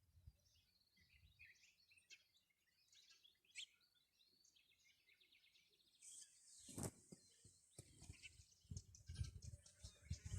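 Faint morning birdsong: scattered short chirps and calls, with a high buzzing trill joining about six seconds in. A sharp knock comes just after that, and low rumbling thumps follow.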